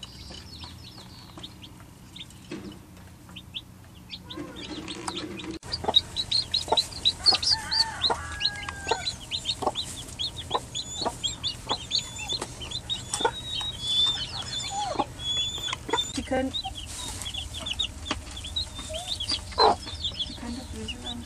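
Newly hatched chicks peeping rapidly and continuously from about six seconds in, short high falling peeps, with a few lower clucks from the mother hen among them.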